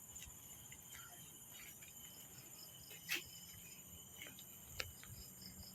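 Faint insects, crickets or cicadas, calling: a steady high-pitched trill with a row of quick repeated chirps beneath it. A couple of sharp clicks cut in, the louder one about three seconds in and another near the end.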